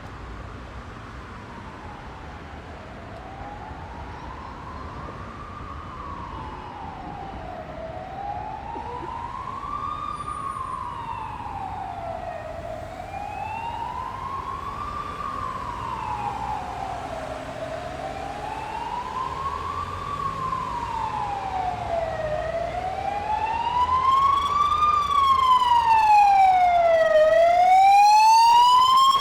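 Emergency vehicle siren in a slow wail, rising and falling about every five seconds and growing steadily louder as it approaches, over a steady hum of road traffic.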